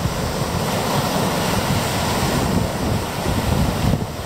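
Steady rushing water noise with wind buffeting the microphone, a fluttering low rumble under an even hiss.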